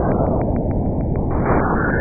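Plasma waves between Saturn and its moon Enceladus, recorded by Cassini's Radio Plasma Wave Science instrument and converted into audio. A steady, dense whooshing noise whose upper edge slowly falls in pitch.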